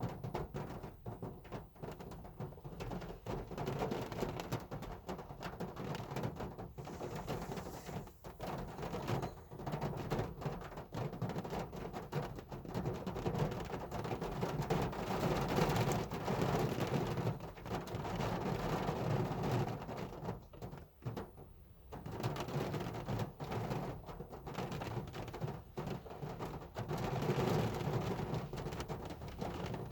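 Heavy rain drumming on a car, a dense patter of drops with a low rumble. It swells around the middle and again near the end, and eases briefly a little after two-thirds of the way through.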